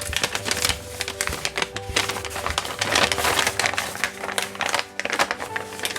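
Paper pages and thin receipt paper of a handmade journal being handled and unfolded, with irregular crinkling, rustling and tapping. Soft background music plays underneath.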